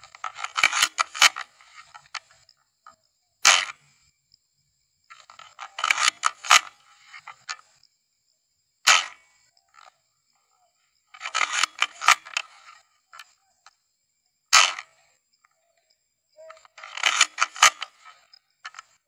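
Novritch SSG10 A1 spring-powered bolt-action airsoft sniper rifle firing three single shots about five and a half seconds apart. Between the shots come short runs of quick mechanical clicks as the bolt is cycled to cock the spring and chamber the next BB.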